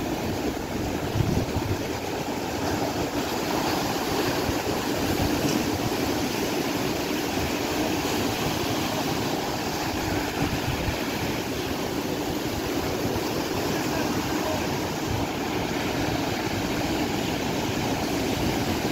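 Sea surf breaking and washing up the beach: a steady rushing noise.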